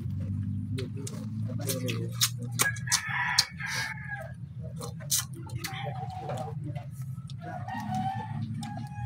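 A rooster crowing, over a steady low hum and scattered sharp clicks.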